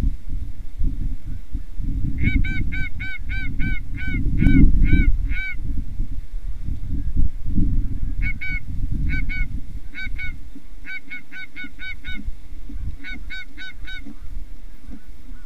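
Goose honks: a fast run of short, identical clipped honks, about three or four a second, starting about two seconds in, then shorter bursts of honks later on. A steady low rumble runs underneath.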